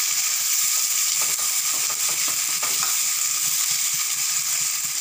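Chopped onions and tomatoes sizzling steadily in hot oil in a metal kadai, with a steel ladle scraping and stirring through them now and then.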